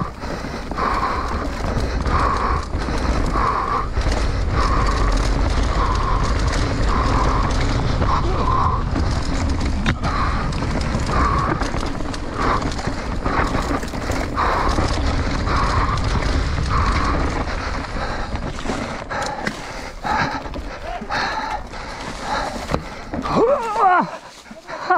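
Mountain bike ridden fast down a forest dirt trail: steady rumble of tyres and wind, with the chain and frame rattling over roots and bumps, and the rider breathing hard in a steady rhythm. Near the end the rumble drops off as the bike slows into a tight turn, with a short squealing from the brakes.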